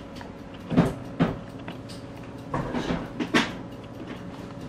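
Short knocks and clunks of kitchen things being handled: two about a second in, then a small cluster around three seconds in.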